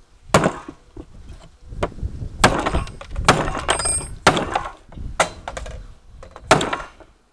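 Hatchet blows knocking hard against an electronic component from a circuit board, about seven sharp whacks roughly a second apart, to crack its casing and get at the copper coil inside.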